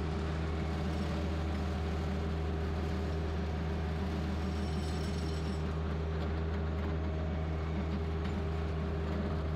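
Compact tractor engine running at a steady speed with a rear rotary cutter attached, a constant low hum with no change in pitch.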